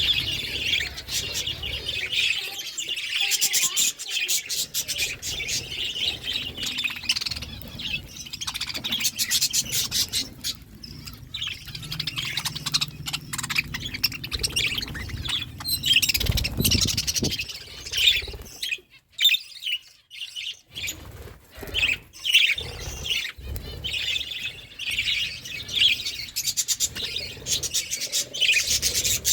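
Budgerigars chirping and chattering steadily while eating, with many rapid clicks from beaks working at seed.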